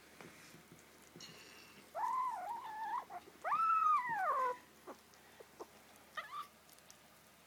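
Kitten meowing twice over a chicken bone it is chewing: a shorter call about two seconds in, then a longer one that rises and falls.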